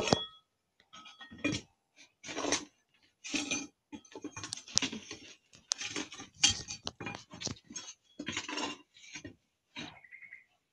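Play dishes and utensils clattering and scraping as they are handled, in irregular bursts with a few bright clinks.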